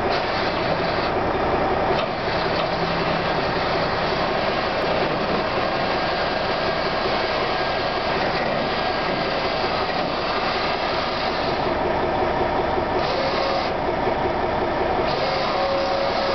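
Steady mechanical running as the electric drive lowers the brick tray's side gate, with the truck running underneath.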